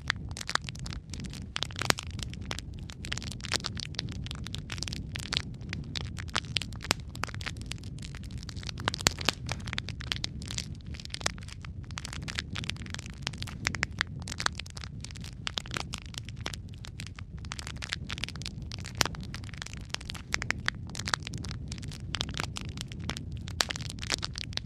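Logs burning in a fireplace: dense crackling and sharp pops over a steady low rumble of the flames.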